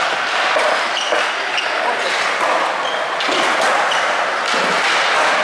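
Skateboard wheels rolling on smooth concrete, with scattered sharp clacks and knocks of boards being popped and landed, in a large indoor skatepark hall.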